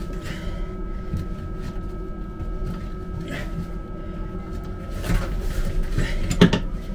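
Scattered knocks and clunks of hands refitting parts of a railway carriage's vacuum toilet valve after a diaphragm change, the sharpest near the end. Under them runs a steady low hum with a thin high whine.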